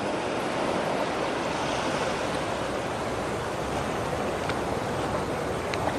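Steady rushing noise, with a couple of faint ticks near the end.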